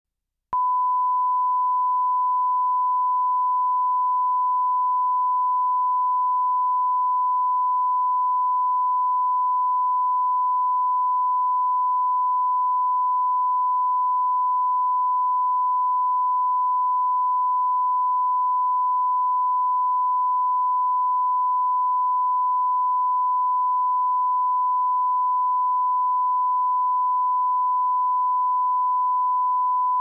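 Steady 1 kHz line-up test tone, the reference tone that runs with colour bars at the head of a broadcast commercial tape. It starts suddenly about half a second in and holds at one pitch and level without a break.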